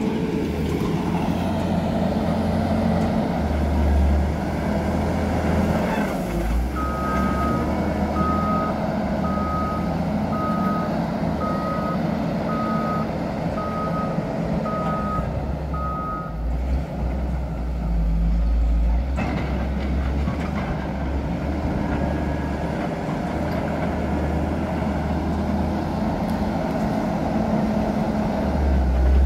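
Caterpillar 140M motor grader's diesel engine running steadily, its reversing alarm beeping about ten times, roughly once a second, as the machine backs up.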